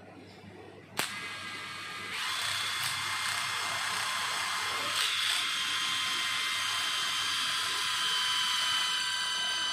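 Cordless impact driver with a socket driving a long lag screw into a wooden stump. A sharp click about a second in, then the tool runs and gets louder about two seconds in, running steadily under load and dropping slightly in pitch.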